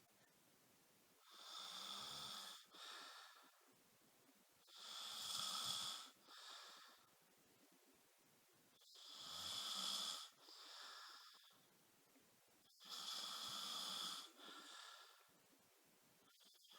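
A person snoring in slow, regular breaths: four cycles about four seconds apart, each a longer, louder snore of about a second and a half followed by a shorter, quieter one.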